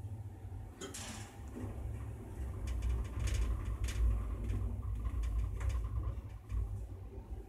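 Elevator car starting off and travelling up the shaft: a steady low rumble with scattered light clicks and rattles, and a brief swell of noise about a second in as it gets under way.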